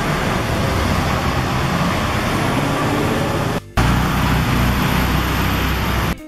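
Loud, steady city street noise from road traffic, with a heavy low rumble. It cuts out briefly about three and a half seconds in, then carries on.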